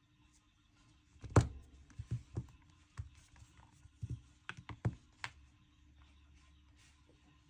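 Handling noise: about ten irregular taps and knocks over four seconds, the loudest about a second and a half in.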